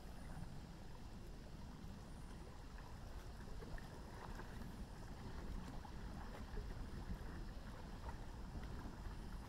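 Faint thunderstorm ambience over a river: a steady low rumble with a light hiss.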